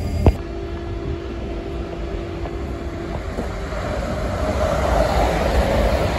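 Electric passenger train approaching through a station, its running noise growing steadily louder from about four seconds in. A sharp click sounds just after the start, followed by a steady hum.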